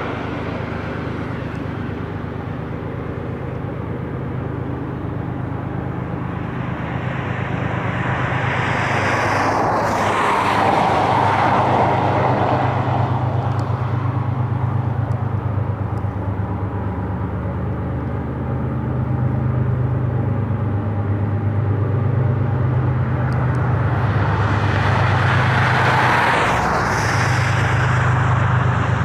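Steady low drone of the distant CN grain train's diesel locomotives working along the canyon, growing louder a few seconds in. Two road vehicles swell past close by, about ten seconds in and again near the end.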